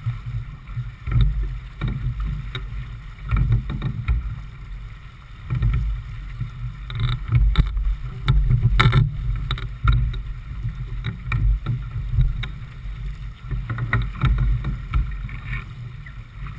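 A J/24 sailboat under way to windward: gusting wind buffets the microphone in an uneven low rumble, over the hiss of water along the hull. A sharp knock sounds about nine seconds in.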